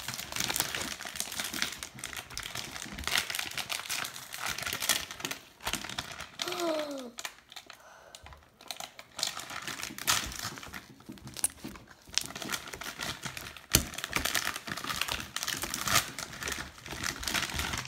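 Homemade white slime being stretched, pressed and blown into bubbles: dense wet crackling and clicking, with a few sharper pops in the second half.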